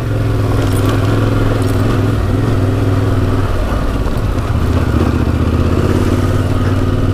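Yamaha Ténéré 700's parallel-twin engine running at a steady speed while the bike is ridden, its note shifting briefly about halfway through before settling again.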